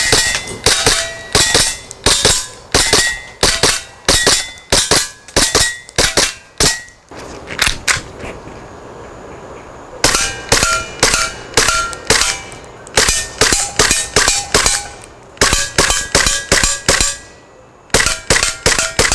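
Tokyo Marui Glock 17 Gen4 gas blowback airsoft pistol firing shot after shot, about two a second, each a sharp crack of the gas-driven slide cycling, with short metallic rings from BBs hitting steel plate targets. The shooting pauses briefly about halfway and again near the end.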